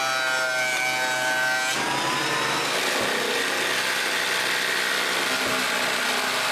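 An electric power tool is cutting wood, taking material off the back of a wooden floor plank with a steady, loud rushing noise. A whine over the first two seconds fades as the cut goes on.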